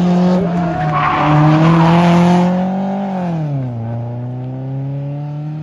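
Rally car engine held at high revs through a hairpin, with a harsher rasp for a second or so. About three seconds in the revs drop steeply, then climb steadily again as the car accelerates away.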